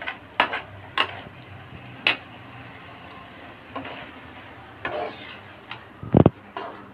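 Spatula scraping and knocking against a steel pan while stirring a thick meat curry: scattered sharp clicks, with a louder knock about six seconds in.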